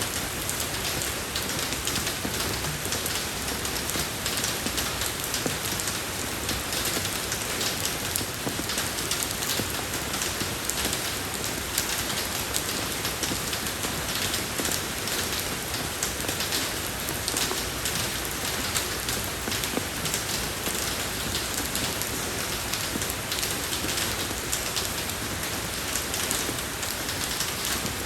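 Steady rain falling on a road surface: an even hiss made up of many small drop impacts, with no let-up or change.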